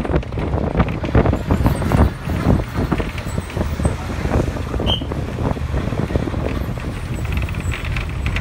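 Ride noise of a moving road vehicle: a constant low rumble with wind buffeting the microphone and frequent short knocks and rattles, busiest in the first few seconds.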